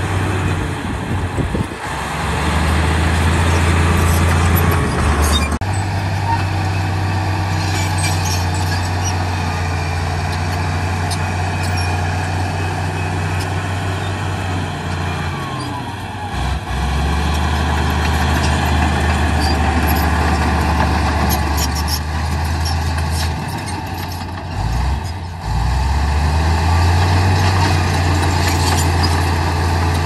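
Komatsu D68E bulldozer's diesel engine running under load, its note dipping briefly a few times as the throttle eases, with occasional metallic clanks.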